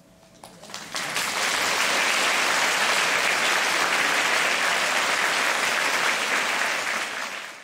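Large audience applauding: the clapping starts within the first second, swells quickly and holds steady, then cuts off suddenly near the end.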